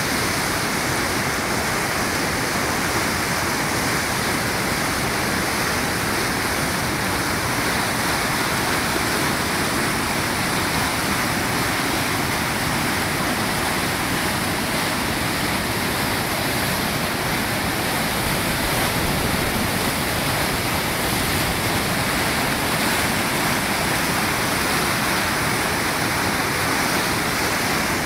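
A brook in flood, brown with mud, pours out of a concrete spillway chute and churns into standing waves below it. The water makes a steady rush.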